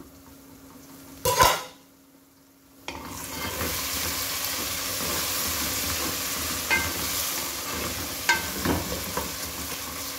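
Chopped tomatoes and onions sizzling in hot oil in an aluminium pot, stirred with a wooden spoon, with a few light knocks of the spoon against the pot. Before the sizzling comes in about three seconds in, there is one loud knock, then a brief hush.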